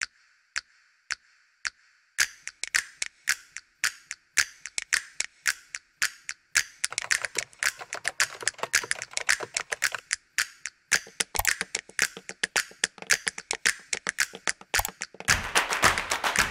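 Computer keyboard typing: three single key clicks, then fast keystrokes that grow denser. Music comes in near the end.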